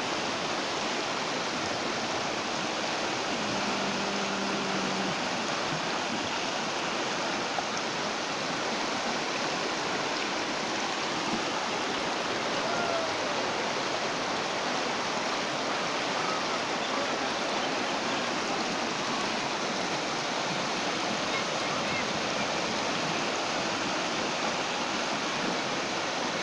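Floodwater rushing and churning as it pours over a road and embankment: a steady, unbroken rush of water.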